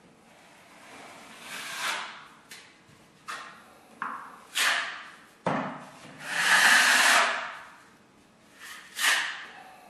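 Drywall knife spreading and scraping joint compound on a wall: a series of short scraping strokes, with a longer, louder stroke past the middle.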